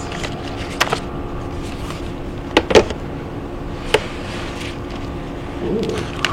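A few sharp clicks and taps of laptop packaging being handled, over a steady low room hum; the loudest come as a quick pair about two and a half seconds in.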